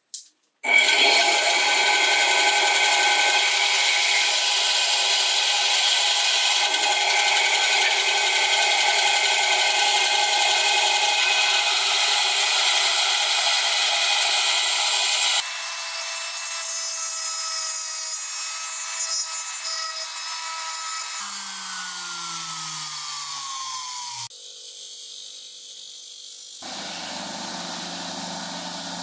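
Power tools working wood: a loud, steady motor whine with cutting noise for about fifteen seconds, then a quieter machine whose pitch falls as it winds down. Two shorter stretches of other tool noise follow, each starting and stopping abruptly.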